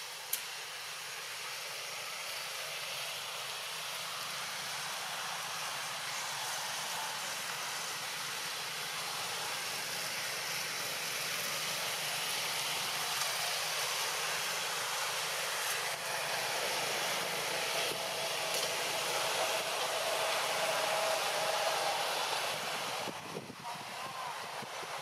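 Steady outdoor background hiss that slowly swells, with a single click just after the start and a faint hum later on.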